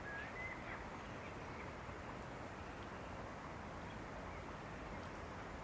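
Outdoor ambience: a steady hiss of background noise, with a few short bird chirps in the first second.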